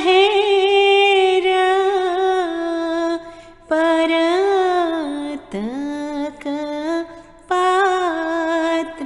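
A solo voice singing a Gujarati devotional song, drawing out long held vowels with a slight waver in three phrases, each ending in a short breath pause; the middle phrase dips and slides back up.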